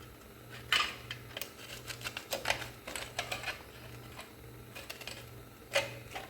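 Metal hand tools working on drum brake hardware: irregular metallic clicks, taps and clinks as the brake springs and shoes are pried off by hand without drum-brake tools. A low steady hum runs underneath.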